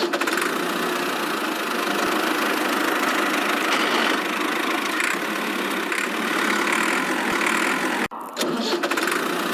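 A small motor running steadily, briefly cut off about eight seconds in, then running again.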